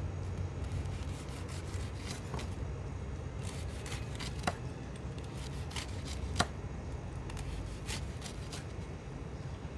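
Kitchen knife slicing through a deep-fried sushi roll's crispy crushed-cracker crust, with scattered crunches and crackles and one sharper knock of the blade on the wooden cutting board about six and a half seconds in, over a steady low hum.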